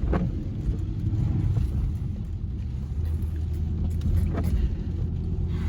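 Car engine and tyre rumble heard from inside a moving car, with a steadier low hum setting in about three seconds in.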